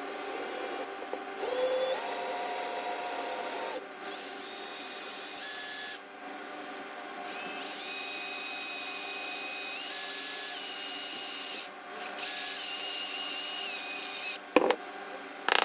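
Cordless drill/driver running in several short runs, its whine stepping up and down in pitch with the trigger, as it backs out a bolt. A couple of sharp clicks near the end.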